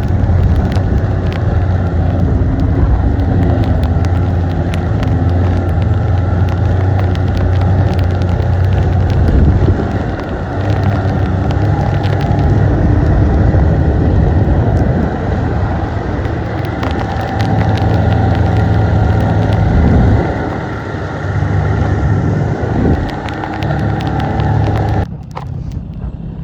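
Snowmobile engine running under way, its pitch rising and falling with the throttle, with frequent knocks and rattles from the ride. About 25 seconds in the engine eases off and gets quieter.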